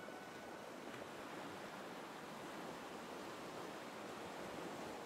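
Faint, steady wash of sea waves and wind: an even, hiss-like noise with no distinct events.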